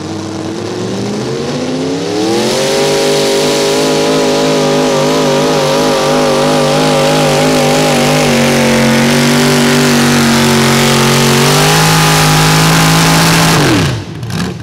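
A 1600 lb unlimited mini rod pulling tractor's engine runs at full throttle hauling the sled. Its revs climb over the first couple of seconds, then hold high with a wavering pitch. They dip and climb again, then wind down sharply near the end as the pull finishes.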